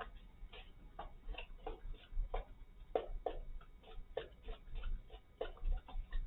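Irregular light clicks and taps, two or three a second, from handling a pushchair's fabric shopping basket and its frame while fitting the basket onto the pushchair.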